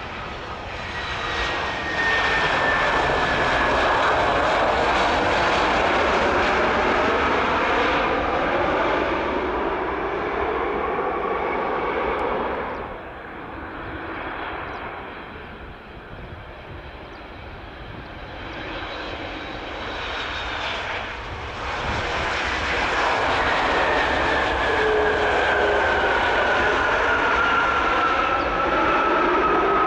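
Jet airliners' engines heard in two passes: first an Airbus A320 close by the runway, loud with a whine that falls in pitch, cutting off suddenly; then a Boeing 737 MAX approaching, quieter at first and growing louder, loud again with a falling whine as it reaches the runway near the end.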